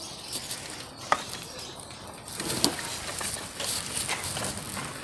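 Rustling and handling noise from a person walking with an armful of freshly cut banana leaves pressed against the phone, with a sharp click about a second in.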